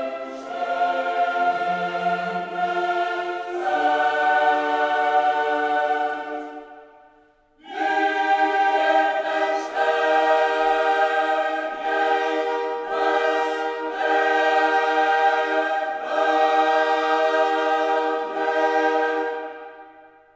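Background music: a choir singing long held chords. It drops away briefly about seven seconds in, comes back, and fades out at the end.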